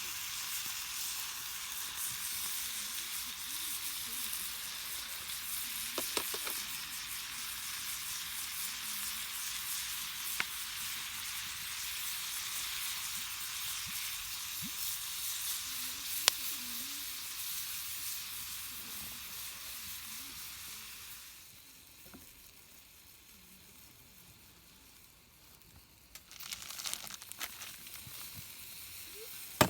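Sukiyaki sizzling in a hot pan: a steady frying hiss with a few sharp pops. The sizzle dies down about two-thirds of the way through and picks up again with crackling near the end.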